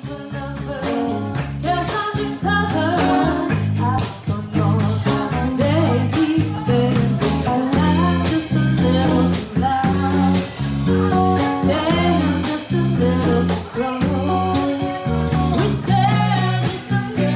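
Live band playing: a woman sings lead over electric guitar, electric bass and a drum kit, with a steady beat throughout.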